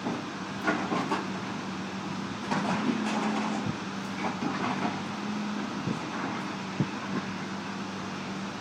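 John Deere backhoe's diesel engine running steadily, with irregular metal clanks and scraping knocks from the machine at work. The busiest stretch is about three seconds in, and a sharp knock comes near the end.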